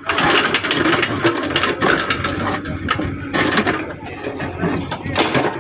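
JCB backhoe loader's diesel engine running steadily under work, with metallic clattering and rattling from the machine.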